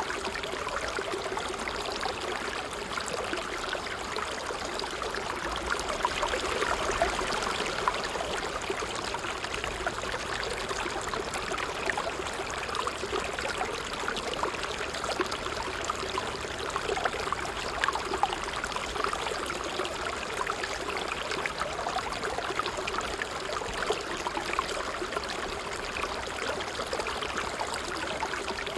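A small stream of water trickling steadily, with a continuous babble of fine splashes and small drips.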